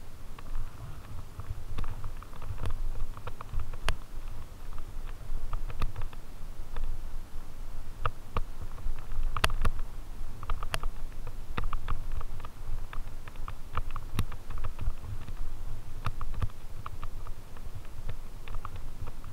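Fat-tyre mountain bike riding over a leaf-strewn dirt trail: a steady low rumble with frequent irregular clicks and rattles as the bike jolts over the ground.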